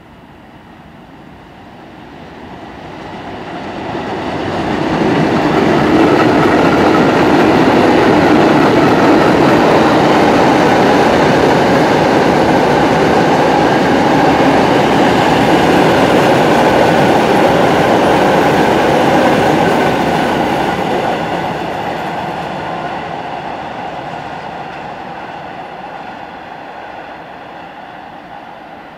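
A freight train of open hopper wagons runs past on the track, its wheels rumbling and clattering on the rails. The sound builds over the first few seconds, stays loud through the middle and fades away slowly over the last several seconds.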